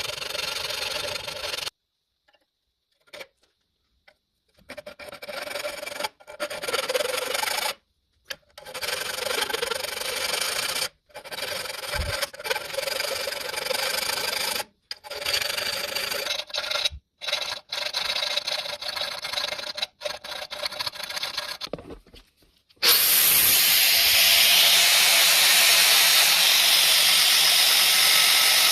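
A hand tool scraping back and forth over a workpiece in a run of short, cut-together bursts. Near the end it gives way to a louder, steady hiss.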